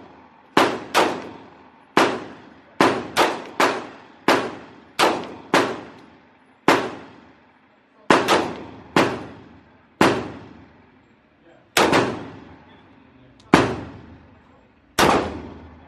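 A 9mm Glock 17 pistol being fired on an indoor range: about twenty sharp shots at an uneven pace, some in quick pairs and runs, each with a short echo off the range's walls.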